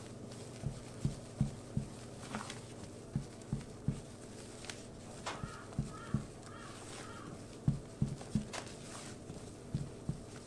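Rubber spatula folding cocoa sponge batter in a glass bowl: soft, dull knocks of the spatula and bowl, several a second in irregular runs, with a few sharper clicks.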